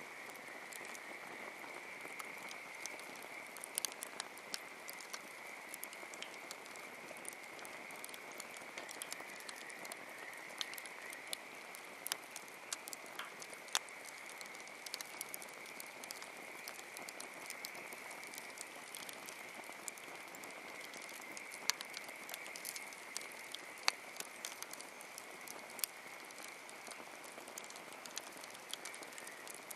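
Wood campfire crackling, with irregular sharp pops and snaps of burning wood. Behind it runs a steady, high-pitched chorus.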